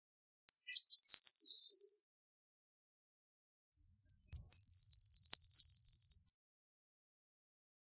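Eurasian blue tit singing: two song phrases, each opening with high thin notes that step down into a fast, even trill, with a pause of nearly two seconds between them.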